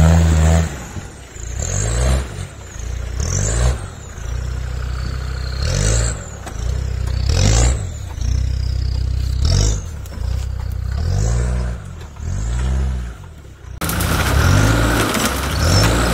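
Land Rover Discovery Td5's five-cylinder turbodiesel engine revved hard again and again, climbing and dropping about every one and a half to two seconds, with a high whine that rises and falls with each rev. Near the end the sound turns to a denser noise over the running engine, with branches scraping against the body.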